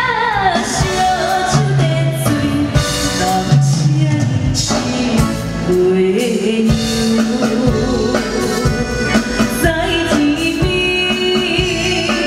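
A woman singing a pop ballad into an amplified microphone, backed by a live band of electronic keyboard and drum kit through a PA system.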